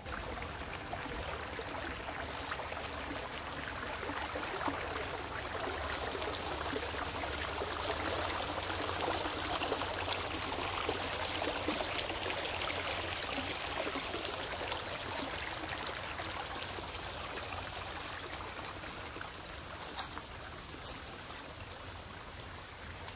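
Steady rush of flowing river water, with a single sharp click near the end.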